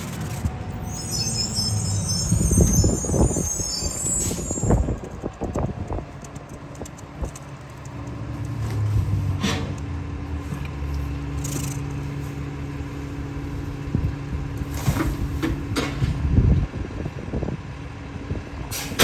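Garbage truck working: a hiss of air for a few seconds starting about a second in, then the engine held at a steady, higher speed with a droning tone that drops off about three seconds before the end. A few sharp knocks are heard along the way.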